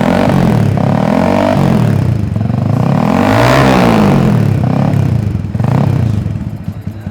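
Yamaha XSR155's single-cylinder four-stroke engine revved through its exhaust, rising and falling in pitch several times, highest about halfway through.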